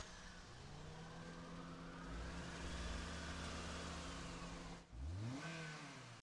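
Car's electric power window motor whirring as the glass winds up. Its pitch rises as it starts and then holds steady, and a second short rising whir follows near the end.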